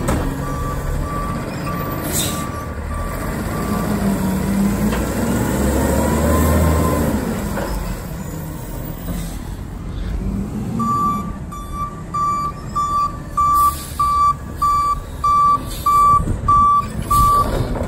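Automated side-loader garbage truck's diesel engine running and swelling in speed for a few seconds, then its reverse alarm beeping loudly and evenly, a little under two beeps a second, as it backs up in the second half. Fainter beeps of the same pitch come early on.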